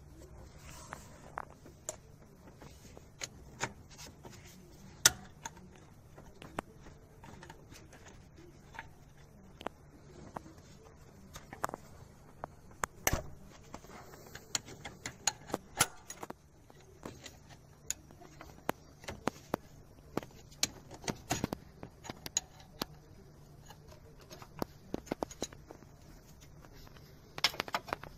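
Irregular sharp clicks and metallic taps of hand work in a car engine bay, as a gloved hand handles a hose and its spring clamp around the EGR valve. Underneath is a faint low hum.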